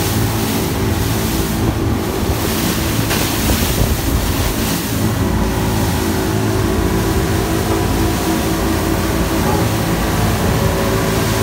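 Inboard engine of a 26-foot Striper fishing boat running steadily at cruising speed, with rushing water from the hull and wake and wind buffeting the microphone.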